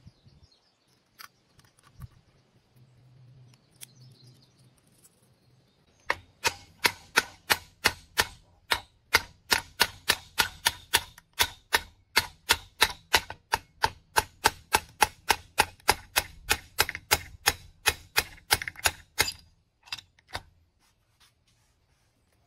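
Rapid hammer blows on metal, about three a second, starting some six seconds in and stopping after about thirteen seconds: the John Deere hydraulic pump's shaft being driven out. Before that, a few faint clicks of metal parts being handled.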